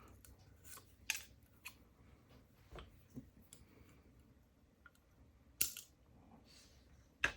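Faint, scattered small clicks and taps of a brass Ruko oval lock cylinder being taken apart by hand, with sharper clicks a little after a second in, about five and a half seconds in and near the end.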